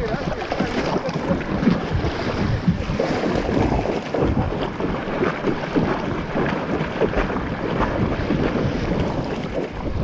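Sea water splashing and churning close to the microphone as a swimmer kicks through the surf with fins, many short splashes over a steady wash, with wind buffeting the microphone.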